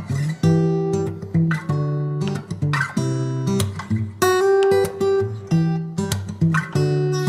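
Background music: acoustic guitar playing, notes and strummed chords struck in a steady rhythm.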